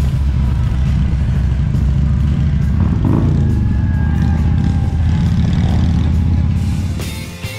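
Harley-Davidson V-twin motorcycle engines running, a loud low rumble with the pitch briefly rising and falling in the middle, fading near the end.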